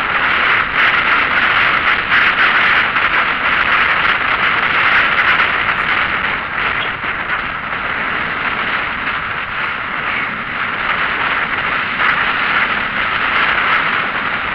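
Steady rushing road and wind noise inside a moving vehicle, with no clear engine note; it eases a little midway and builds again.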